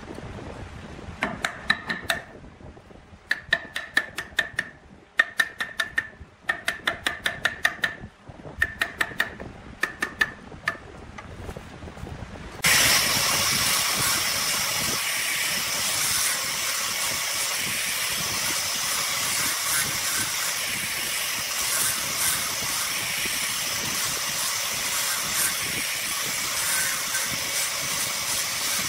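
A hand chisel scraping the inside of a wooden bowl in short bursts of rapid rattling ticks with a faint ringing tone. About halfway through, an angle grinder fitted with a sanding disc cuts in suddenly and runs steadily against the wood with an even hiss.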